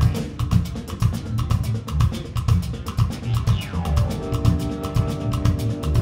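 A live band playing, with a drum kit keeping a steady beat under guitars, bass, keyboards and horns. A falling glide sounds about halfway through.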